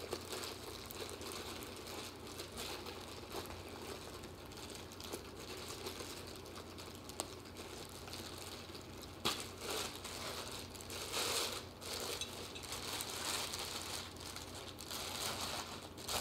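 Plastic wrapping crinkling and rustling as a wax warmer is unwrapped by hand, in irregular flurries that get busier in the second half. One sharp tap about nine seconds in.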